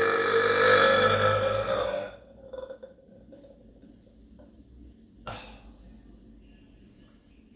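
A long, loud, deliberate burp held on a steady low pitch, ending about two seconds in. A brief sharp click follows about five seconds in.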